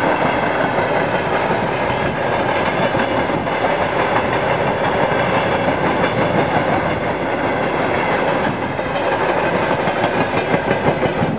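Covered hopper wagons of a freight train rolling past, their steel wheels clattering and rumbling steadily on the rails.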